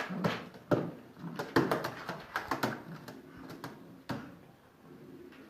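A string of sharp knocks and taps with a small-room echo, several loud ones in the first two and a half seconds and a last one about four seconds in.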